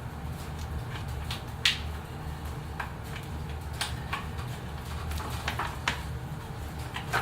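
Scattered short clicks and light metal taps from the bar nuts and side cover of a Stihl 661 chainsaw being worked off, the sharpest about a second and a half in, over a steady low hum.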